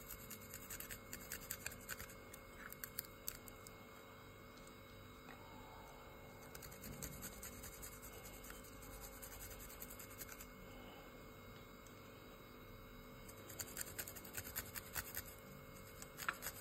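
Garlic cloves rubbed across a flat stainless-steel hand grater: faint, quick scratchy strokes in bunches, busiest in the first few seconds and again toward the end.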